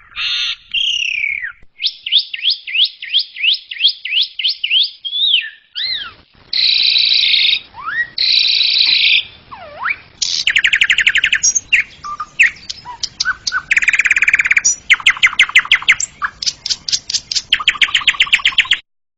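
Asian pied starling (jalak suren) singing a long, varied song: whistled slurs, rapid rattling trills and fast repeated chattering notes. The song cuts off suddenly near the end.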